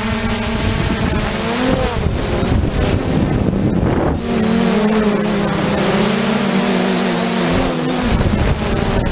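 3DR Solo quadcopter's four electric motors and propellers humming in flight, heard close up from its onboard camera. The pitch wavers, rising and falling as the drone manoeuvres, with a brief rush of noise about four seconds in.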